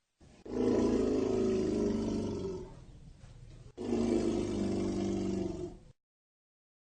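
Elephant giving two low calls, each about two seconds long, with a gap of about a second between them.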